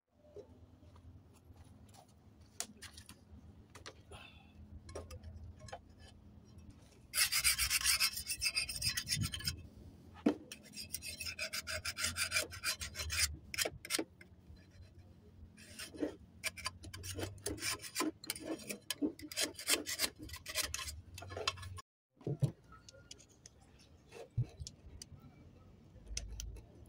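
Engine parts being scrubbed and rubbed clean by hand: several spells of fast scraping and rubbing strokes, the loudest a few seconds in.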